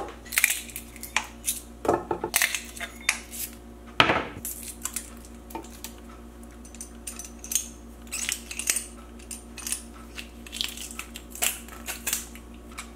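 Kitchen clatter of bowls, a chef's knife and metal utensils being set down and picked up on a countertop and wooden cutting board. It is a scattered run of sharp clicks and knocks, the loudest at the start and about four seconds in.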